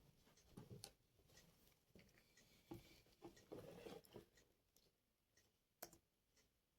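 Faint small-object handling at a desk: scattered light taps and brief scratchy rustles, busiest in the first few seconds, with one sharper click near the end.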